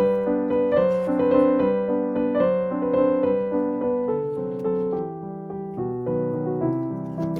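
Solo piano playing a slow, flowing melody of separate notes over a lower accompaniment.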